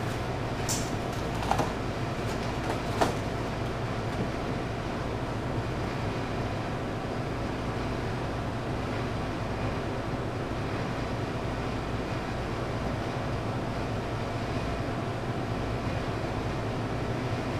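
Steady noisy hum of commercial kitchen equipment, with a few short cardboard knocks in the first three seconds as pizza boxes are folded.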